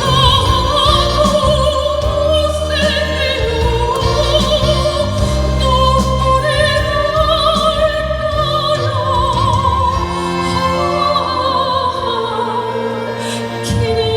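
A soprano singing in classical operatic style, holding long notes with wide vibrato over instrumental accompaniment.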